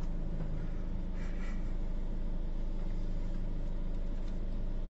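Car engine idling, a steady low hum heard from inside the cabin. It cuts off abruptly near the end.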